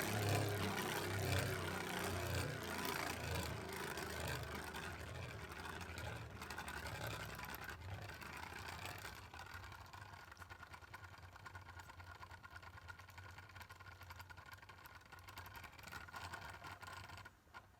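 Gargoyle G4 Beyblade Burst spinning top whirring around a plastic stadium, the sound fading gradually as it loses speed, then cutting off sharply near the end as the top stops.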